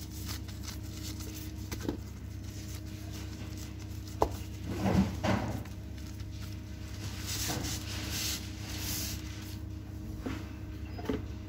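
Gloved hands spreading and pressing sushi rice onto nori sheets on a cutting board: soft handling and rustling, with a sharp tap about four seconds in and a couple of louder knocks just after, over a steady low hum.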